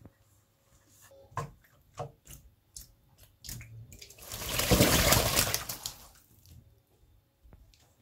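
A pigeon splashing in shallow water in a stainless steel sink: a few small splashes, then a loud two-second burst of splashing from about four seconds in as it beats its wings in the water.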